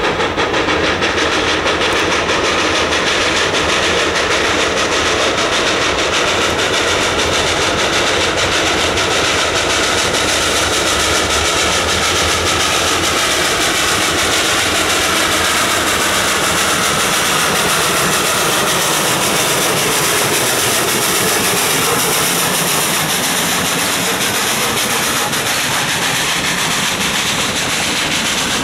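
Baldwin 2-8-0 Consolidation steam locomotive #734 working hard as it approaches and passes, its exhaust beating rapidly and steadily, with a tone that slides down in pitch around the middle. Near the end its hopper cars roll by behind it.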